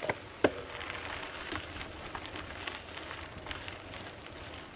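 Mountain bike rolling over a dirt trail: a steady crackling crunch of tyres on grit, with scattered clicks and knocks from the bike.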